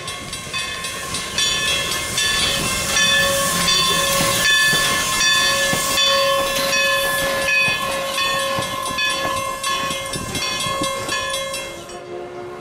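Everett Railroad No. 11, a 2-6-0 Mogul steam locomotive, rolling slowly past at close range with steam hissing, loudest as the cylinders go by. The hiss drops away suddenly near the end.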